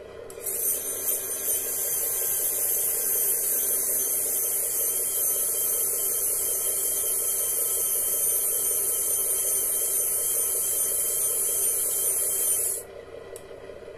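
Rear stabilizer legs of an RC tow truck retracting under their small electric actuators: a steady, high-pitched whir that starts about half a second in and cuts off sharply when the legs are up, near the end.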